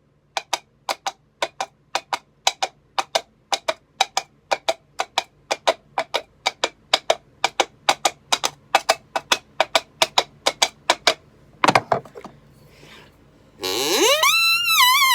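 Coconut shell halves knocked together in a steady clip-clop, about three to four knocks a second, as a horse's hoof sound effect. The clopping stops after about eleven seconds. A single louder knock follows, then near the end a loud pitched call that rises, wavers and falls, like a horse's whinny.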